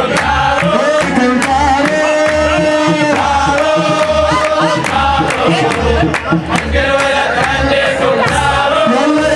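Arabic wedding song: a male singer on a microphone with a group of men singing along, over a steady beat of percussion and handclaps.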